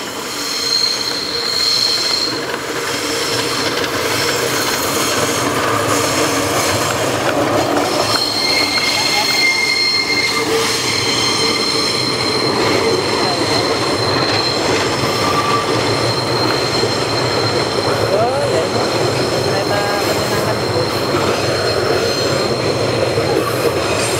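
Passenger train drawn by a diesel locomotive running slowly under the brakes, its wheels squealing in several high steady tones that come and go over a continuous rumble of the carriages on the rails.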